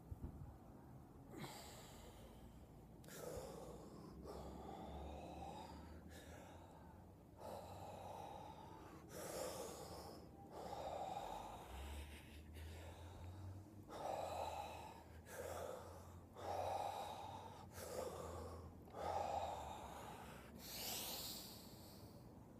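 A man breathing forcefully in a steady rhythm during a breathwork exercise, with a strong, noisy breath in or out about once a second.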